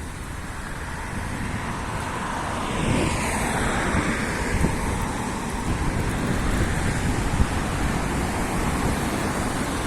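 Road traffic, with a vehicle passing close by about three seconds in; its noise swells, then falls in pitch as it goes away. Wind noise buffets the microphone throughout.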